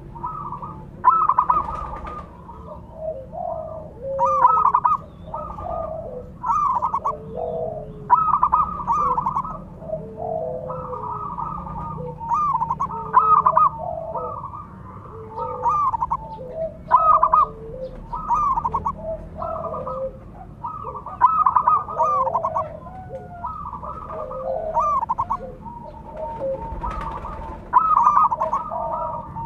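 Zebra doves (perkutut) cooing: a steady run of short, rolling, staccato coo phrases, one after another, with calls at two pitches overlapping at times.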